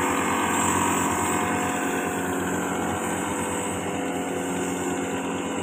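Backpack motorized seed blower's small two-stroke engine running steadily at high speed, blowing rice seed out over a flooded paddy.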